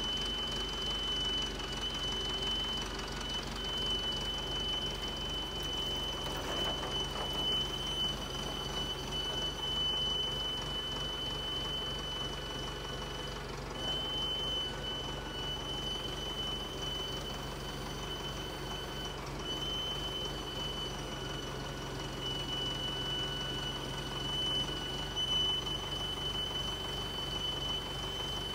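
An engine idling steadily, with a thin, steady high-pitched whine over it and a brief rattle about seven seconds in.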